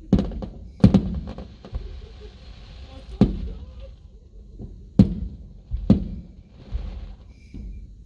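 Fireworks show: aerial shells bursting with sharp bangs, several in a row a second or so apart, the loudest about a second in and about five seconds in, with a crackling hiss after the burst a second in.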